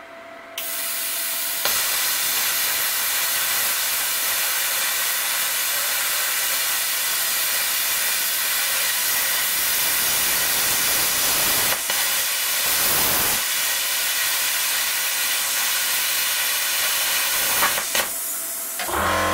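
Cut 50 ST air plasma cutter's torch arc cutting thin steel at its 11-amp minimum. It is a steady, loud hiss that starts about half a second in, dips briefly a little past the middle, and stops just before the end.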